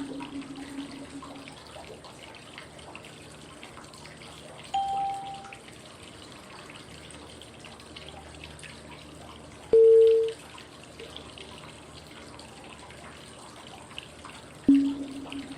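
Steady flowing-water white noise with a short cue tone about every five seconds, each at a different pitch: a higher tone about five seconds in, a louder middle tone about ten seconds in, and a low tone near the end. The tones pace 5-5-5 breathing, marking the changes between inhaling, holding and exhaling.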